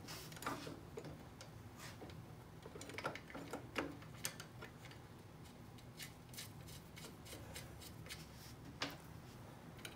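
Faint, irregular clicks and light metallic taps of hand tools and bolts being worked by hand, over a low steady hum.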